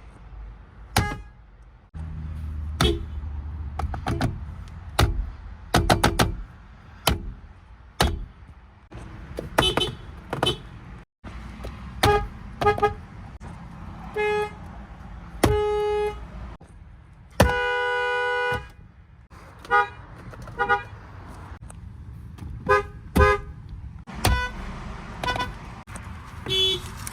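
Nissan and Infiniti car horns from several different cars, honked in quick short taps, with one longer held honk about two-thirds of the way through.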